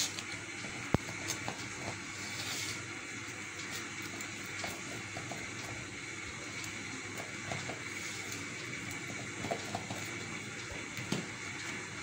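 Pizza cutter wheel rolling and pressing through baked crust onto a plate: scattered small clicks and scrapes over a steady hiss, with one sharp click about a second in.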